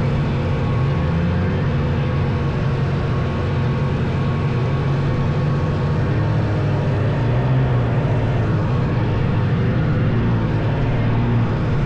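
Vintage snowmobile engine running steadily under way, getting a little louder about two-thirds of the way through.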